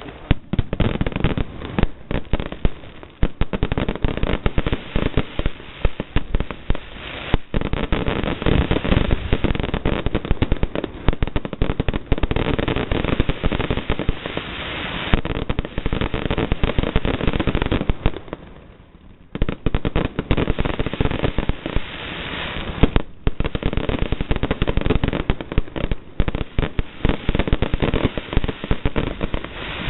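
Fireworks going off in rapid succession: a dense, continuous run of bangs and crackles, easing off briefly about eighteen seconds in before picking up again.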